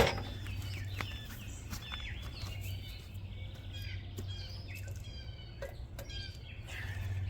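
Small birds chirping and trilling, over a steady low hum. A sharp knock sounds at the very start.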